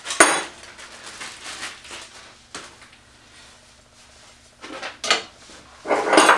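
Metal parts clinking and clattering as a fence bar is set onto a drill press's steel table and small hardware is handled. There is a sharp click right at the start, a few light clicks about five seconds in, and a louder clatter near the end.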